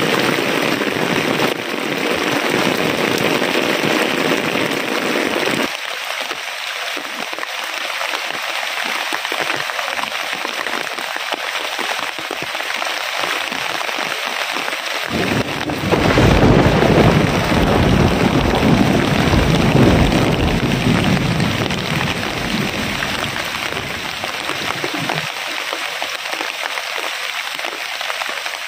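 Heavy rain pouring steadily, its tone changing abruptly several times. A deep low rumble comes in about halfway through and stops suddenly a few seconds before the end; it is the loudest part.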